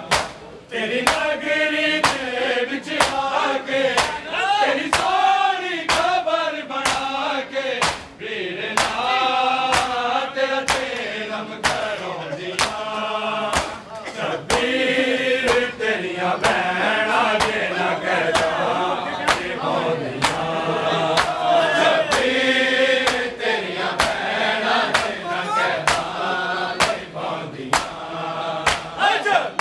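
Mourners doing matam, a steady beat of sharp open-hand slaps on bare chests, under male voices chanting a Punjabi nauha in chorus.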